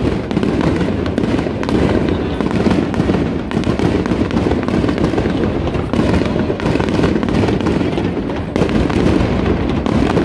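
Aerial fireworks display: a dense, unbroken barrage of bursts and crackle, many shells going off in quick succession.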